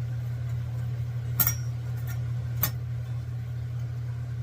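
Steady hum of an electric fan, with two sharp clinks a little over a second apart as the unlit Campingaz gas lantern is handled while trying to light it.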